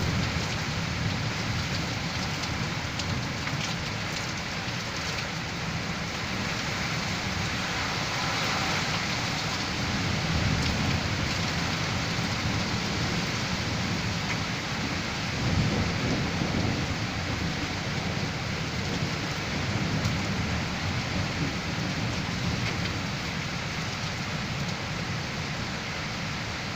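Heavy rain pouring steadily in a severe storm, with low rumbles swelling a few times, about ten and fifteen seconds in.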